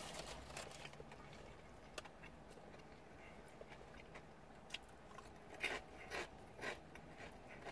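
Potato chip being bitten and chewed close to the microphone: a few crisp crunches, most of them between about five and a half and seven seconds in, with wet, smacking chewing between them.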